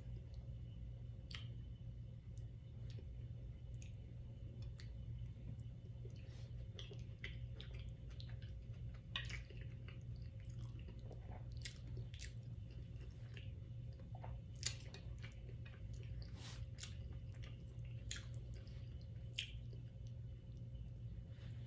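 Close-miked chewing and wet mouth sounds of a person eating, with irregular soft clicks and smacks scattered throughout.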